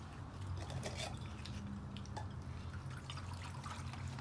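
Faint scattered clicks and light rustles of a group eating with their hands, tearing flatbread and handling plates, over a steady low hum.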